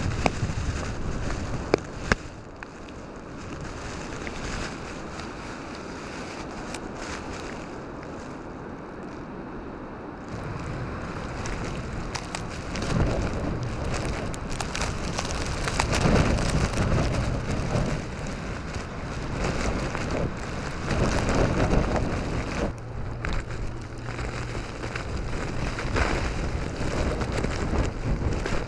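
Strong blizzard wind gusting and buffeting the microphone, a steady rushing that swells and fades, with heavy low rumbling surges in the stronger gusts. A few sharp clicks or knocks about two seconds in.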